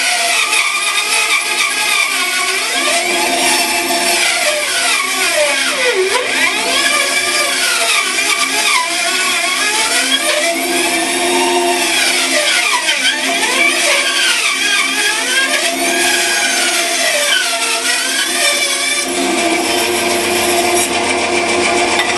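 Bandsaw running and cutting a mahogany piece at a 45-degree bevel: a steady motor hum with a whine that sweeps up and down in pitch as the wood is fed through, its tone changing a few seconds before the end. The blade is due for changing.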